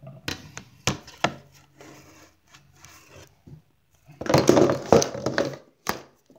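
Handling noise on a phone's microphone as the phone is carried and moved about: sharp knocks, three in the first second and a half and another near the end, with scraping and a loud patch of rubbing and rustling in the second half.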